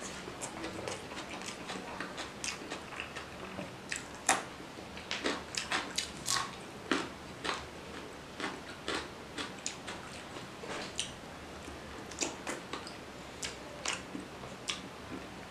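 A person chewing mouthfuls of rice and fish curry eaten by hand, close to the microphone: irregular, quick smacking and clicking mouth sounds, thickest in the middle stretch.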